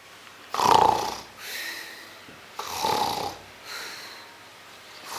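A person snoring: three loud, rasping snores about two seconds apart, each followed by a softer breath out. The first snore is the loudest.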